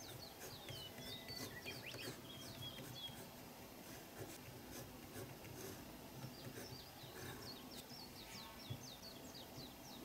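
Faint birdsong: quick runs of short, high chirps, in two spells, over a faint steady background hum.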